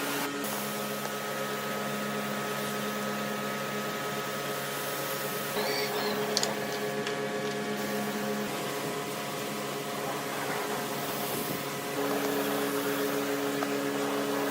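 A steady mechanical hum of several fixed tones, which shifts a few times, with a few short clicks about six seconds in.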